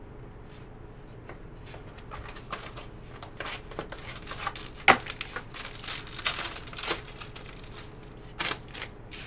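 Trading card pack being opened and handled: the wrapper crinkles and tears and the cards rustle in irregular bursts, with one sharp snap about five seconds in.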